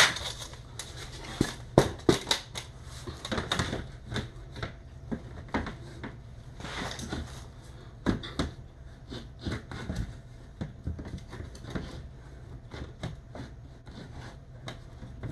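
Irregular clicks, taps and light knocks of objects being handled, over a steady low hum.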